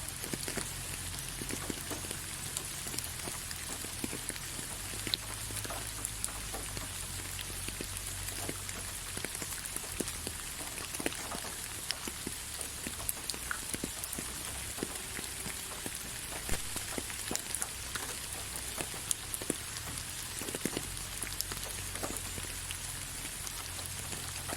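Rain falling on leaves: a steady hiss of rainfall with many separate drops ticking at irregular moments.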